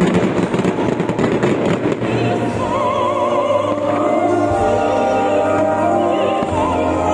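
Fireworks crackling and popping in quick bursts through the first two seconds, over loud music in which an operatic voice sings with wide vibrato. The music carries on alone after the bangs thin out.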